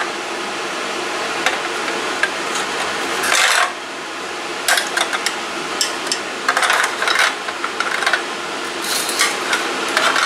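Metal scraping, knocking and clinking in short clusters as a long-handled tool works inside a small folding solid-fuel camp stove, with the steady noise of an exhaust fan underneath.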